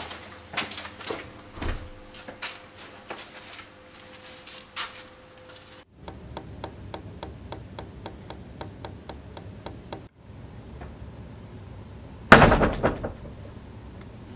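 Footsteps on a hard floor for the first few seconds, then a run of even ticks at about three or four a second. About twelve seconds in comes a single loud bang of a door slamming shut, ringing out for about a second.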